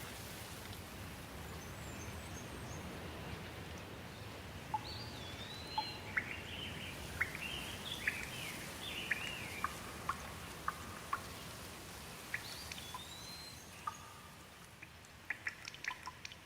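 Steady rain falling, with birds calling over it in short rising and falling chirps through the middle. Near the end the rain thins and separate drips ticking can be heard.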